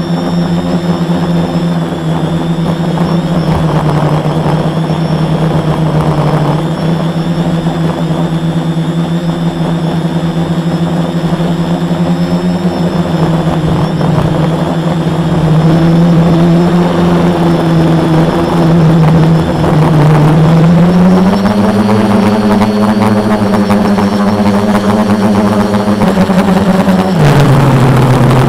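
Brushless motors and 10x4.5 propellers of a 450-size quadcopter (Multistar 2212 920kv motors) buzzing in flight, heard loud and close from a camera mounted on the airframe. The pitch holds steady, climbs in steps about halfway and two-thirds through as throttle rises, then drops sharply near the end as throttle is cut back.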